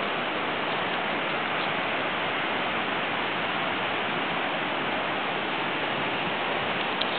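A steady, even hiss that does not change, with a faint click near the end.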